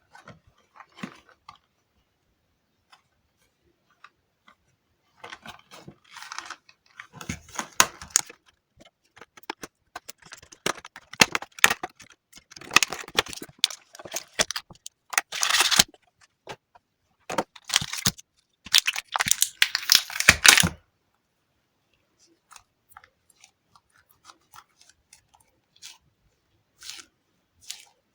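Sticky squishy toy balls being squeezed and pulled apart in the hands, giving off bursts of tacky crackling and tearing sounds as the sticky surface peels away. The sound is busiest for most of the first twenty seconds, then thins to a few faint clicks before picking up again near the end.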